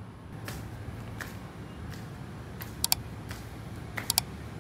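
Footsteps on a tiled floor at an even walking pace, with two sharp double clicks about three and four seconds in, over a steady low hum.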